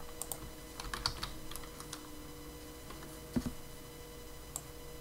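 Computer keyboard keys clicking as a search term is typed: scattered keystrokes, with a quick run about a second in and a louder one a little past three seconds.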